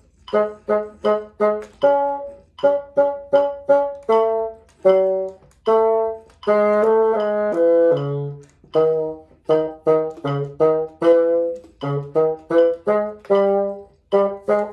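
Bassoon playing an etude in short, separated notes at a slow practice tempo, over a metronome clicking eighth notes, three to a measure.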